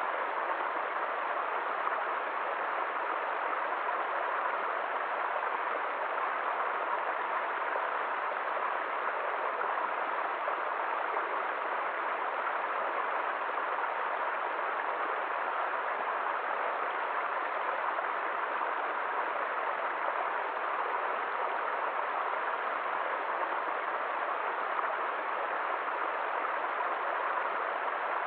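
Water running steadily: a continuous, even rush with no breaks or changes.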